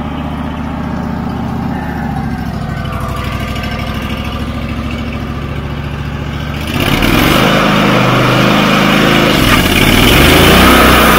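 Portable band sawmill's engine running steadily, then about two-thirds of the way in it speeds up as the blade and debarker are engaged, and the sound becomes much louder, with a hiss from the running blade over the engine.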